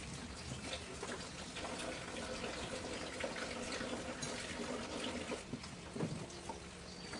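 Kitchen tap running into a sink as hands are rinsed under the stream.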